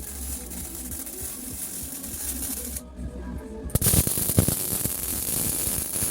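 Steady hiss of the fibre laser cutter's assist gas as the head cuts sheet metal. It cuts out for just under a second near the middle, then returns louder with a couple of sharp cracks.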